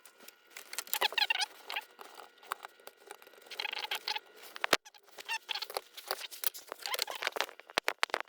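Scratchy scraping, rubbing and small clicks of a motor starter contactor's metal parts being worked by hand, with short squeaky rubbing passages about a second in and near four seconds and a sharper knock just before five seconds.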